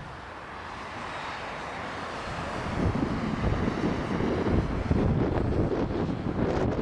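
Airbus A319 jet airliner on approach to land, its engine noise growing steadily louder as it nears, with wind buffeting the microphone.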